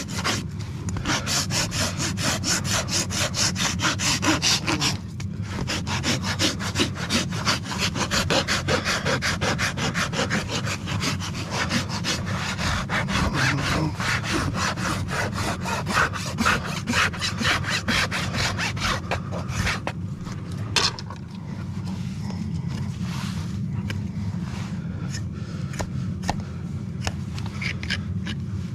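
Farrier's rasp filing a horse's hoof, with a quick, steady run of rough back-and-forth strokes. The strokes turn lighter and sparser about two-thirds of the way through.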